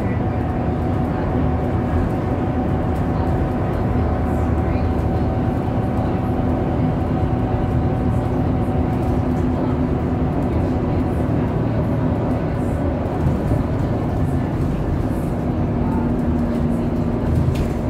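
Interior of a city bus travelling at speed: a steady engine and drivetrain drone with a constant hum, over tyre and road rumble, and a small knock near the end.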